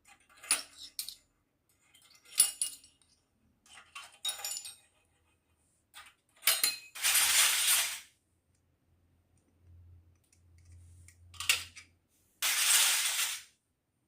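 Small hard toy kitchen pieces clinking and clicking as they are handled, in several short bursts. Two even, rustling or scraping sounds of about a second each come midway and near the end.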